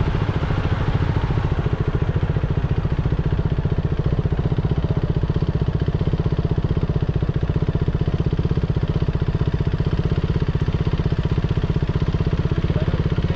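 A small engine running steadily with an even, rapid beat.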